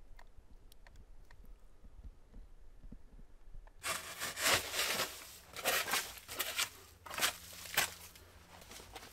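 A shovel scraping and digging into a dirt floor in several rough strokes, starting about four seconds in after a quiet stretch with a few faint ticks.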